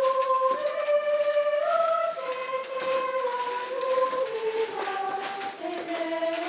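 Live school concert music: a slow melody of long held notes that gradually step downward in pitch.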